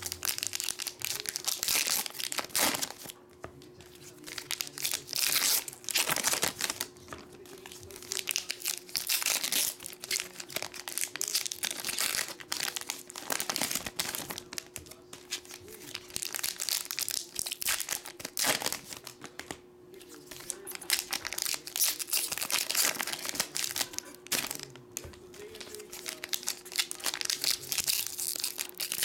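Foil Pokémon Vivid Voltage booster-pack wrappers crinkling and tearing as packs are ripped open one after another and the cards slid out, in irregular bursts.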